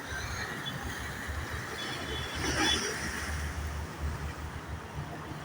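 Steady low rumble of outdoor road traffic, with a slight swell about halfway through.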